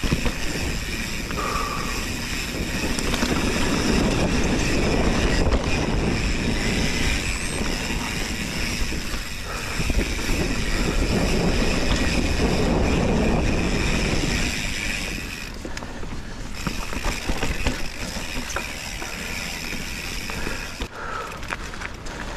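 Mountain bike riding along a dirt trail: a continuous rumble and rattle of tyres and frame, with wind on the microphone. It eases off a little after about fourteen seconds.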